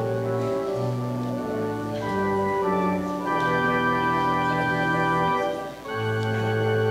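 Organ playing slow, held chords that change every second or so, with a brief break about six seconds in before the next chord.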